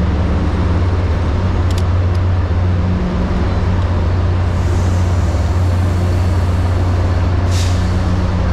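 Steady low drone of idling trains at a station platform, with two hisses of released air, one about halfway through and a shorter, sharper one near the end. A couple of sharp clicks come about two seconds in.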